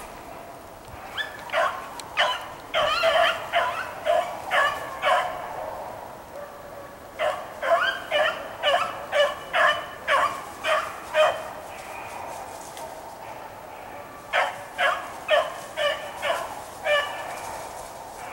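Rabbit beagles barking on a rabbit's trail: three runs of quick, repeated barks with short lulls between them.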